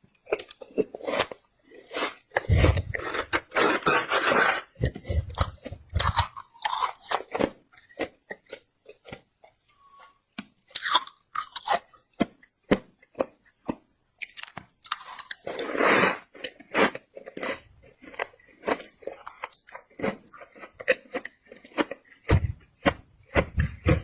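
Close-up chewing and biting of squeaky freezer frost: rapid crunching crackles, thickest in two longer spells of a second or two each.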